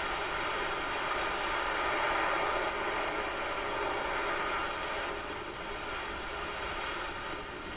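Water gushing from an outfall pipe and spilling into the canal: a steady rushing noise that eases a little about five seconds in.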